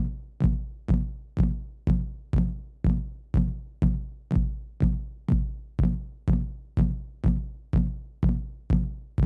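Electronic music soundtrack: a lone drum-machine kick drum beating steadily about twice a second, with no other instruments.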